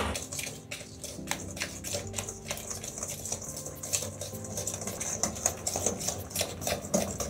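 Wire whisk beating a thick butter, sugar and egg mixture in a stainless steel bowl: rapid, irregular metallic clicking and scraping of the whisk wires against the bowl.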